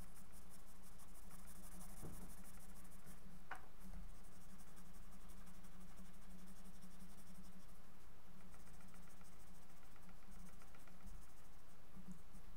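Pencil lead scratching on drawing paper in quick, repeated shading strokes, over a steady low hum.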